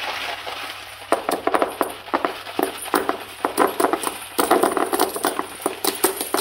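Metal coins clinking and jingling as a toddler's hands scoop and shuffle a pile of them on a rug: a quick, uneven run of small clicks with a light metallic ring, starting about a second in.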